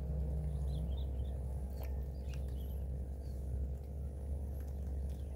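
Steady low outdoor rumble with faint, short high chirps, like small birds, about a second in and again near the middle, and a few light clicks.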